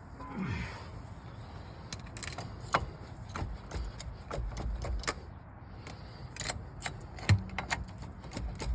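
2002 Chevy Silverado's brake caliper being worked free of the rotor by hand: a short falling creak near the start, then a run of sharp metallic clicks and knocks, the loudest near the end.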